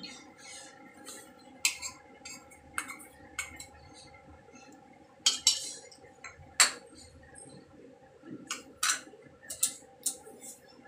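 A metal spoon clinking and scraping against a metal kadhai as cornflour slurry is stirred into milk: irregular light clinks, with a couple of sharper knocks about five and six and a half seconds in.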